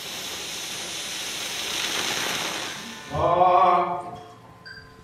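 Editing transition effects: a swelling rush of static-like noise for about three seconds, fading out, then a short pitched tone with several overtones lasting about a second.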